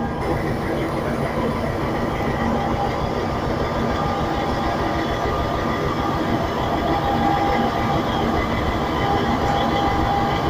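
FS D445 diesel-electric locomotive running steadily with a continuous hum as it creeps slowly up to a railway car for coupling.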